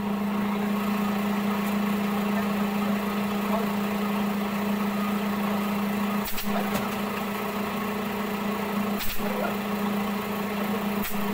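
Steady machine hum of a running electric motor, with a few short clicks about six, nine and eleven seconds in.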